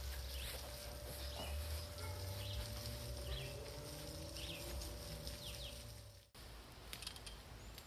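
Faint backyard ambience: a garden hose spraying, short high bird chirps scattered throughout and a low wind rumble on the microphone. The sound drops out abruptly just after six seconds in.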